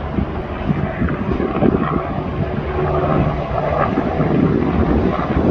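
A low, steady aircraft engine drone, with wind rumbling on the microphone.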